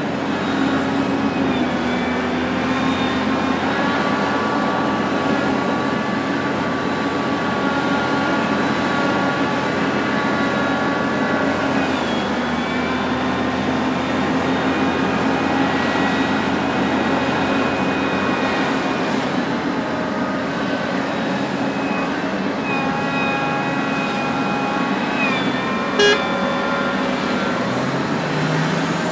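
Large hydraulic excavator's diesel engine running steadily under load, with a whine from its hydraulics that shifts in pitch as it digs and swings. A single sharp clank near the end.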